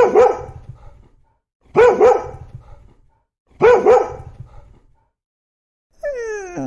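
A dog barking: three sets of two quick barks, about two seconds apart. About six seconds in comes a drawn-out call that slides down in pitch.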